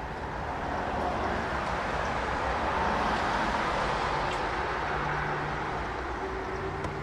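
Vehicle road noise: a steady rush of tyres and engine that swells to its loudest about three seconds in, then eases off.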